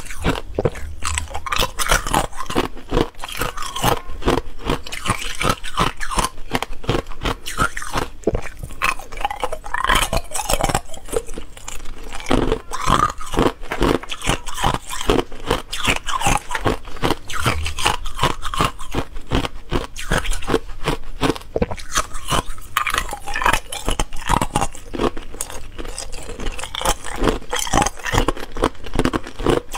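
Clear ice cubes being bitten and chewed: a continuous run of sharp, rapid crunches. Mixed in are cubes scraping and clinking against each other in a plastic tub as more are picked up.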